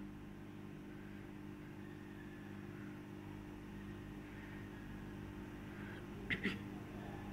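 A steady low mechanical hum, like a motor running, with faint background noise, and two short sharp clicks close together near the end.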